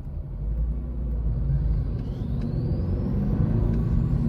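Toyota GR86's 2.4-litre flat-four engine pulling under acceleration, heard from inside the cabin, growing louder, with a faint whine rising in pitch from about two seconds in.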